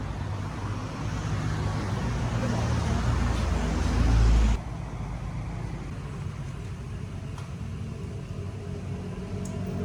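An engine running with a steady low hum, growing louder for about four and a half seconds, then cut off abruptly and followed by a quieter steady rumble.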